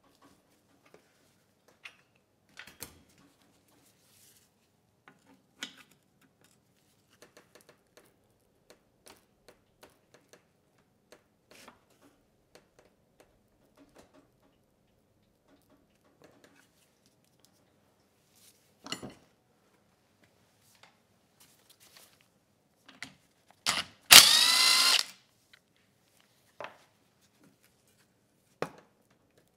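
Light clinks, taps and knocks of metal engine parts and hand tools being handled on a workbench. Late on, a cordless power drill runs for about a second with a rising whine, the loudest sound.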